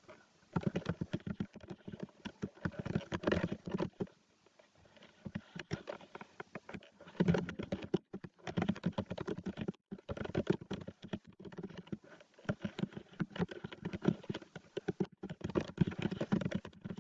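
Typing on a computer keyboard: quick key clicks in runs, broken by short pauses.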